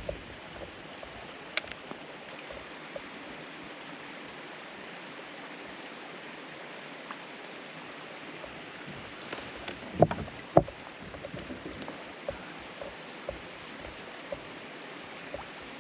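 Steady water noise around a fishing kayak on a lake, with a sharp click about a second and a half in and two knocks about half a second apart roughly ten seconds in.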